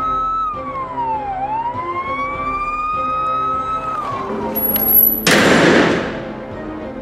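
Police siren wailing over intro music, its pitch sweeping down and then slowly back up before falling away. About five seconds in, a sudden loud rush of noise, the loudest sound, dies away within about a second.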